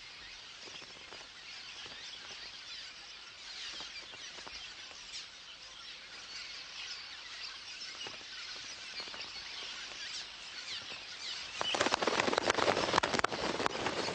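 Many small birds twittering with short, high chirps. About three-quarters of the way in, the calling grows louder and denser, becoming a busy chatter of quick calls.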